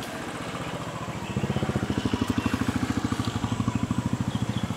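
A vehicle engine idling nearby with a steady, rapid pulsing beat; it grows louder about a second and a half in and falls back near the end.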